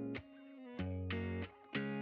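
Background music: guitar chords held and changed, dropping out briefly twice.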